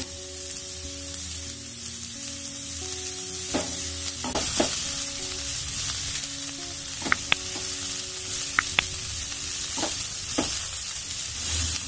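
Chopped cabbage, capsicum and onion sizzling in hot oil in a frying pan while a silicone spatula stirs them. From about three and a half seconds in come a few short, sharp clicks and scrapes of the spatula against the pan.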